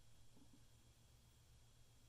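Near silence: faint steady low hum and hiss of room tone.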